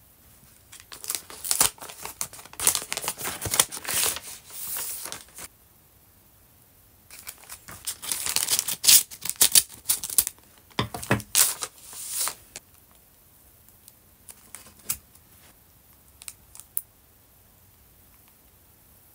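Plastic photo sleeves and a kraft paper envelope crinkling as they are handled, in two bouts with a pause between. Near the end of the second bout, scissors snip through the envelope, followed by a few faint taps.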